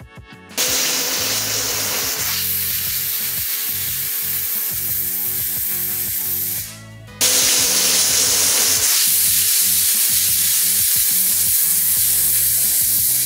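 Stovetop pressure cooker whistling: steam hisses out loudly under the lifted weight valve in two long blasts, the first for about six seconds, then a brief break, then a second that is a little louder. Each blast is one whistle, the cooker releasing steam at full pressure.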